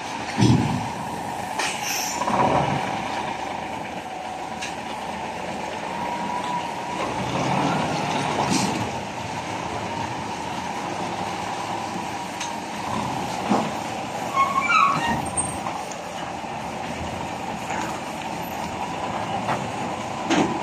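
Hino 700 tractor truck's diesel engine running while it maneuvers a loaded container trailer at low speed, with a few knocks early on and short high squeals about fourteen seconds in.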